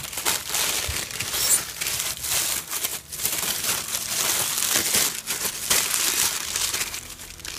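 Brown honeycomb kraft paper wrapping and white tissue paper crinkling and rustling as they are pulled open by hand to unwrap a packed item, with a brief lull about three seconds in.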